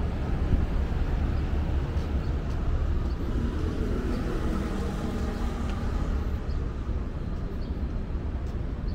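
Steady urban traffic rumble, with a vehicle engine hum swelling for a couple of seconds in the middle.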